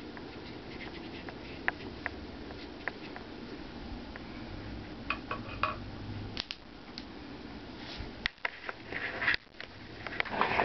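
Steady low room hum with scattered faint clicks and taps, then a cluster of louder scrapes and rustles near the end.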